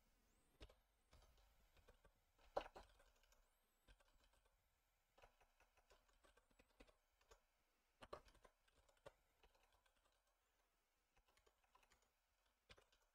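Faint, scattered keystrokes on a computer keyboard as code is typed, a few sharper clicks standing out about two and a half seconds in and around eight seconds.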